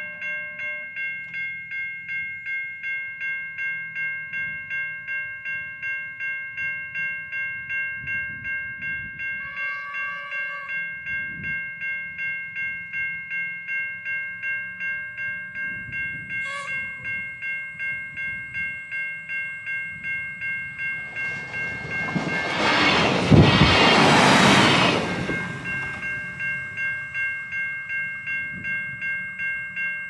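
Level-crossing warning bells ring about twice a second. A NSWGR 620/720 class diesel railcar sounds its horn twice, a blast of about a second roughly ten seconds in and a short toot near 17 seconds, then passes loudly over the crossing, loudest around 23 seconds.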